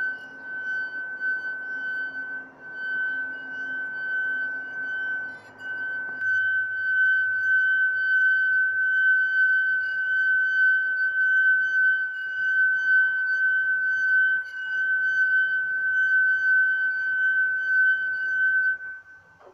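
Glass funnel singing as a moist finger is rubbed around its rim: one steady, high ringing tone with fainter overtones, held unbroken until it stops shortly before the end.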